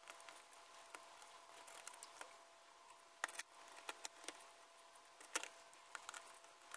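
X-Acto knife cutting and scraping through stretched canvas: faint scattered scratches and small clicks, with sharper clicks about three and a half and five and a half seconds in. A faint steady tone runs underneath.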